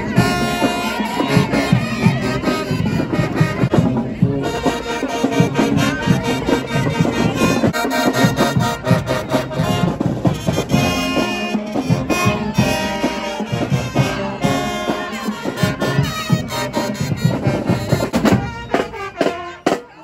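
Marching band brass (sousaphones, trumpets and other horns) playing a tune over a steady drum beat. Near the end the horns drop away and the drumline's snare and bass drums carry on alone.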